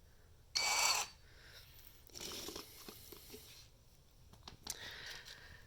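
Cordless 20V impact wrench given a brief trigger squeeze, its motor whirring for about half a second, followed by quieter handling rustles and a few clicks.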